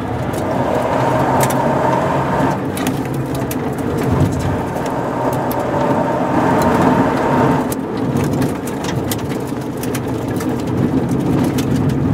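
In-cabin sound of a Toyota GR Yaris rally car's turbocharged three-cylinder engine pulling hard at speed, with loud tyre and road noise and many sharp clicks and rattles. About two-thirds of the way in the engine note changes as the driver lifts off and brakes for a slower section.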